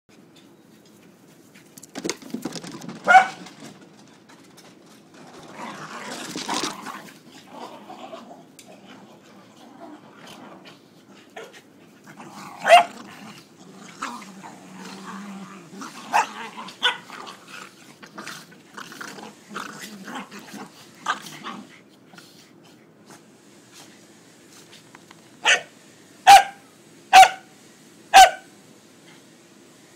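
Pembroke Welsh corgis playfighting, growling, with single sharp barks now and then. Near the end come four loud barks about a second apart.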